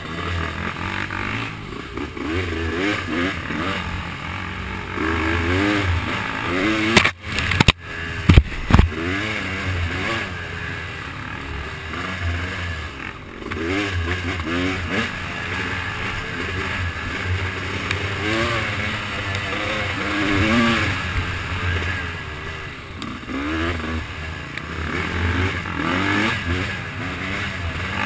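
Off-road trail vehicle's engine revving up and down continually as it rides over rough ground, with clattering from the machine. A few loud knocks and jolts come about seven to nine seconds in.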